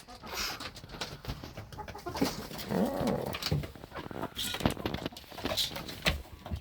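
A small flock of hens clucking and calling softly, with scattered short clicks and rustles.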